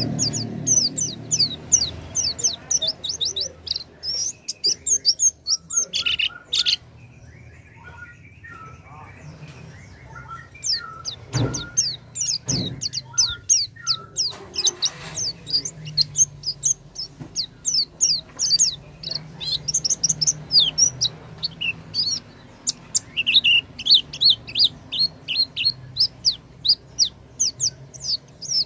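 White-eye (pleci) singing a fast, high twittering song of quick falling notes, played as a lure to set another pleci singing. About a third of the way through the high song breaks off briefly, with a few lower notes and two sharp knocks, then resumes densely.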